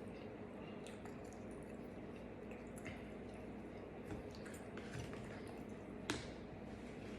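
Close-miked wet chewing and mouth sounds of a person eating, with scattered small clicks and one sharper click about six seconds in, over a steady low hum.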